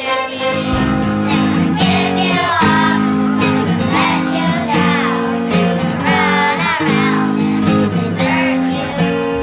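Children's choir singing with instrumental accompaniment, held chords under the melody.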